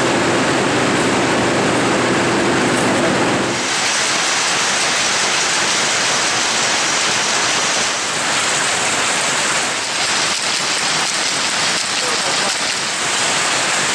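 Many power looms running together in a weaving shed: a loud, dense, continuous mechanical clatter. About three and a half seconds in, a low hum drops away and the clatter becomes brighter and denser.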